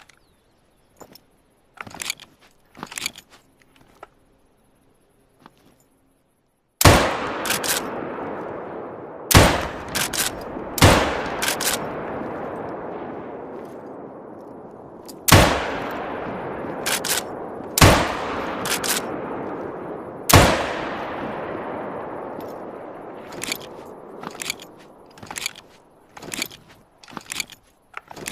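Model 1894 lever-action rifle: a few handling clicks, then six shots spaced a few seconds apart, each echoing away for several seconds with the lever's clicks working right after it. A run of metallic clicks follows near the end.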